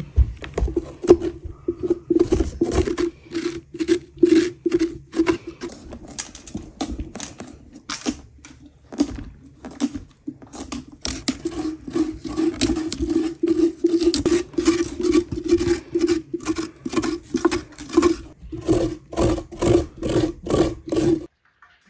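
A spoon scraping out the inside of a hollowed pumpkin: rhythmic scraping strokes, about two a second, with a hollow ring from the pumpkin shell and a short lull about ten seconds in.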